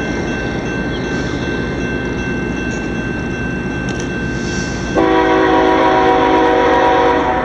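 Approaching diesel freight locomotive, a steady rumble, then a long blast of its multi-note air horn starting about five seconds in and lasting about two seconds.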